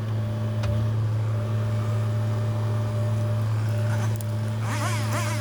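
John Deere 60G mini excavator's Yanmar diesel engine running at a steady speed, with a steady deep hum and a higher tone over it. Near the end a fast up-and-down warbling sound comes in.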